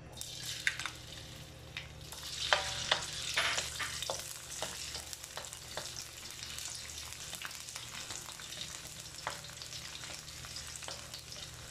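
Sliced ginger sizzling and crackling in hot oil in a stainless steel wok as it is stirred with a spoon, the first step of a sauté. A steady hiss runs under frequent small pops, busiest a few seconds in.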